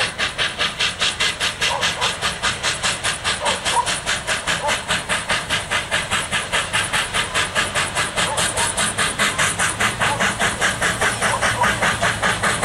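Steam locomotive exhaust beating rapidly and evenly, about four sharp chuffs a second, growing slightly louder as the engine approaches.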